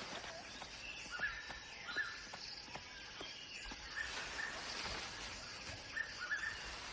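Forest ambience: a steady background hiss with short, repeated bird chirps and a few light clicks.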